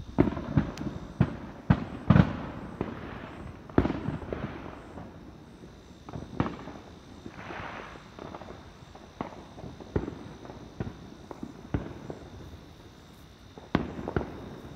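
Consumer fireworks and firecrackers going off in irregular bangs and pops, densest and loudest in the first four seconds. About seven seconds in comes a brief hiss.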